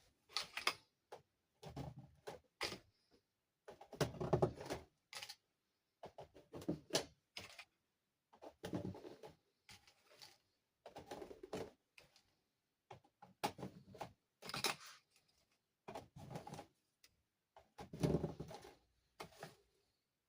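Hands unpacking and handling plastic dollhouse parts and packaging: irregular clicks, knocks and rustling in short clusters every second or two, with brief silences between.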